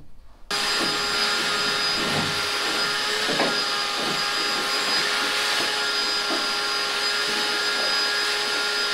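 Vacuum cleaner running steadily with a whine, sucking sanding dust out of the hull. It starts abruptly about half a second in, with a few brief changes in tone as the nozzle moves.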